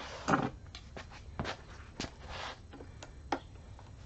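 Scattered light clicks and taps, with a couple of brief scrapes, from metal parts and hand tools being handled on a transfer case during teardown.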